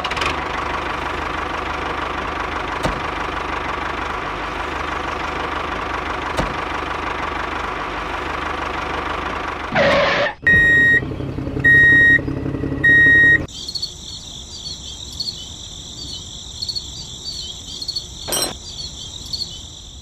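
Mini tractor engine running steadily for about ten seconds with a diesel-like putter. It ends in a whoosh, then three short identical beeps, then a steady high whine with a single click near the end.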